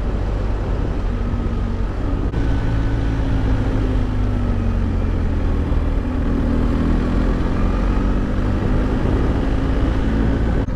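Motorcycle engine running steadily while riding, its pitch drifting slowly down and back up, under heavy wind rush.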